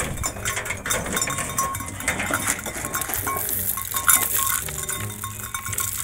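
A flock of sheep crowding and feeding on a pile of dry corn stalks and straw: rustling, crunching and many scattered clacks and knocks as they jostle and chew.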